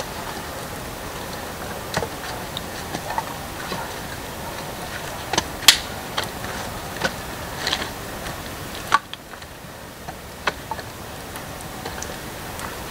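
Small wood campfire crackling, with irregular sharp pops over a steady hiss; the loudest pop comes a little before the middle.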